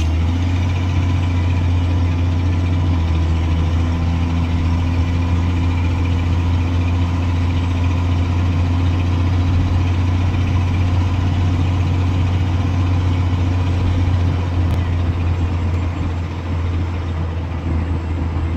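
1986 Ford F-150 pickup's engine running steadily as the truck drives along at an even speed, heard from inside the cab as a deep, steady drone.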